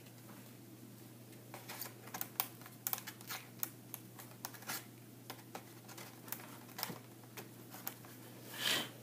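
Colored pencils and markers clicking and tapping in the slotted tray of a wooden art-set case as hands press along the rows: many small, irregular clicks, then a louder brief scrape near the end.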